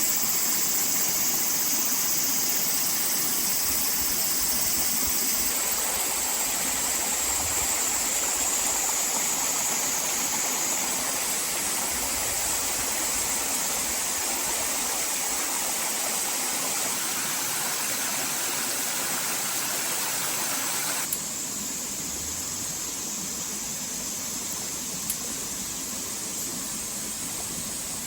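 Steady rushing noise like running water from a stream. About 21 s in it changes abruptly and gets slightly quieter, as at an edit.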